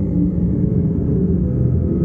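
Electronic tape music: a steady, low rumbling drone with a few held deep tones beneath it and nothing bright above.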